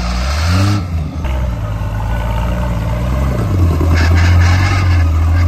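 Off-road buggy's engine revving under load as it climbs over a dirt mound, its pitch rising twice, with short bursts of hiss near the start and about four seconds in.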